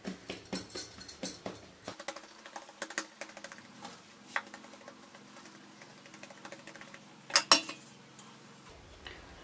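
Hands pressing and patting a ball of soft yeast dough flat on a floured wooden board. There is a quick run of soft taps and light clicks for about two seconds, then scattered light clicks and a louder double knock near the end.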